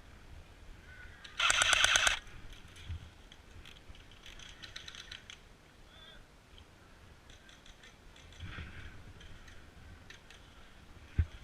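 Airsoft gun firing a short rapid burst of shots, lasting under a second, with a few faint clicks before and after.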